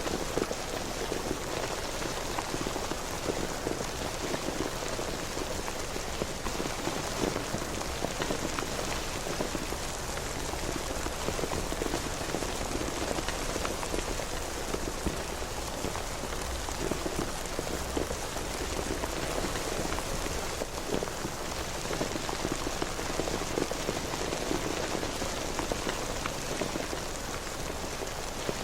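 Steady rain falling, a dense even patter with many small drop ticks and no breaks.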